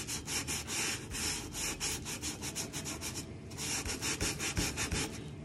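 Scrub Daddy sponge with The Pink Stuff cleaning paste scrubbing the stainless-steel top of a toaster: quick back-and-forth rubbing strokes, with a short pause a little past the middle.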